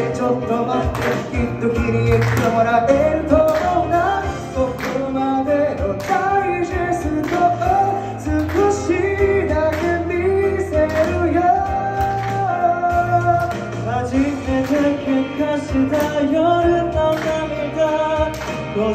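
Male vocalist singing a Japanese pop ballad live into a microphone through a PA, over instrumental accompaniment with a steady beat.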